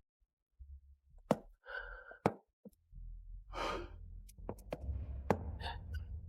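A person sighing and breathing out heavily, twice, with a few short sharp clicks and a low hum underneath.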